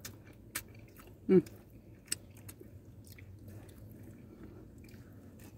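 People chewing pizza close to the microphone, with scattered soft wet mouth clicks and one short vocal sound just over a second in.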